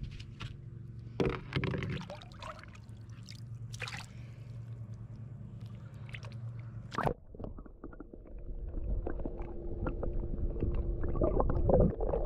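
Water sloshing and gurgling as a small snook is released by hand over the side of a boat, with a few knocks of handling and a sharp knock about seven seconds in. After that comes a dense, muffled rumble that grows louder, heard with the camera under the water.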